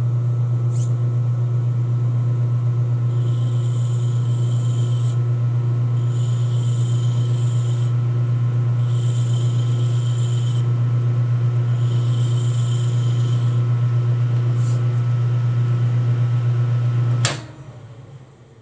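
Metal lathe running with a steady low hum while a hand file is drawn across the spinning workpiece in four long strokes to break a sharp edge. The lathe is switched off near the end and spins down.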